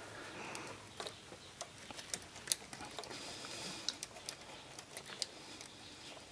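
Scattered light clicks and ticks, irregular and a few each second, from a hand handling parts and plastic connectors in the engine bay, with a faint hiss behind.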